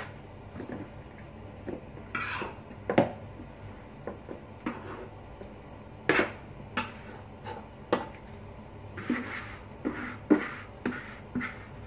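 A utensil scraping around the inside of a large mixing bowl and knocking against it while carrot salad is scraped out into another bowl: scattered short scrapes and sharp knocks.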